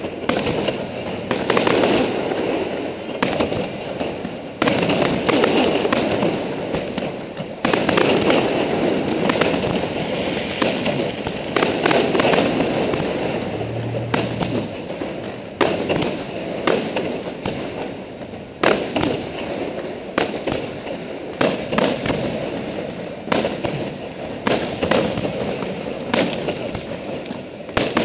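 Aerial fireworks display: shells bursting one after another, a run of sharp bangs about one or two a second over a continuous rumble.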